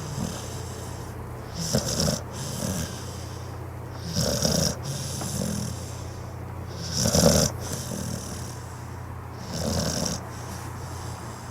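A sleeping dog snoring: about four snores, roughly two and a half seconds apart, each a short breathy rasp with a hiss on top, and softer breaths between them.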